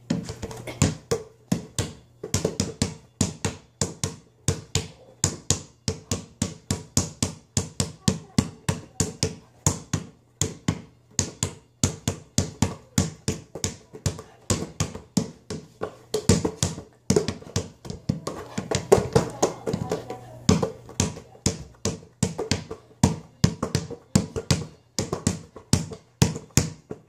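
Basketball dribbled fast, a quick steady run of bounces on the floor at about three a second.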